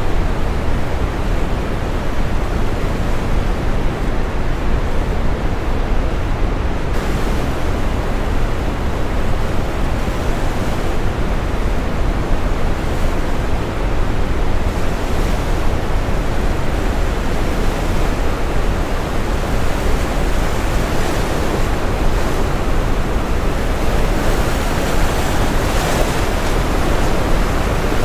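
Steady brown noise, a deep even hiss, layered with ocean waves washing onto a shore. The sound brightens about seven seconds in and again near the end as waves break.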